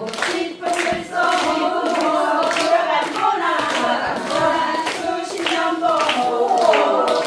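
A group of women singing a Jeju haenyeo folk work song together, with steady clapping keeping the beat.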